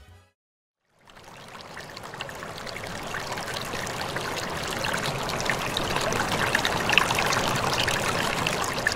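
Running water, fading in about a second in and growing gradually louder.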